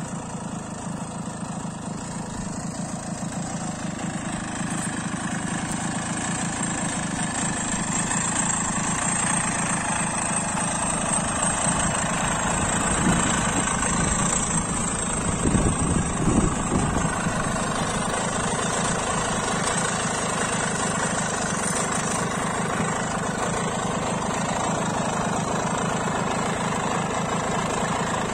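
Minarelli engine of a 35-year-old Benassi walk-behind tiller idling steadily with a rapid, even beat, growing louder over the first ten seconds or so as the microphone nears it, with a few louder uneven moments around the middle. The engine is running without any problem.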